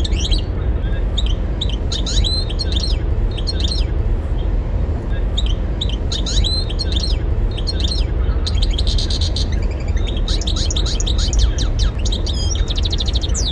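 European goldfinch singing: short twittering phrases of quick, high notes, a denser buzzy run of notes past the middle, and a fast trill near the end. A steady low rumble runs underneath.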